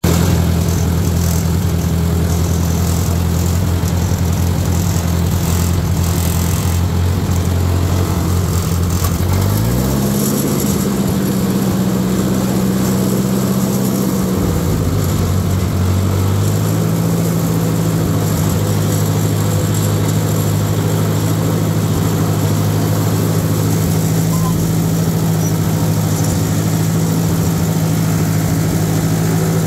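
Ford 640 tractor's four-cylinder gasoline engine running steadily while the tractor is driven. Engine speed rises about ten seconds in, drops back around fourteen seconds, then picks up again a couple of seconds later and holds steady.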